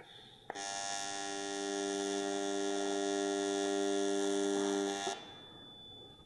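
AC square-wave TIG welding arc on cast aluminum, set to 70% electrode-negative balance, buzzing steadily while tacking the broken part. The arc is struck about half a second in and broken off about five seconds in.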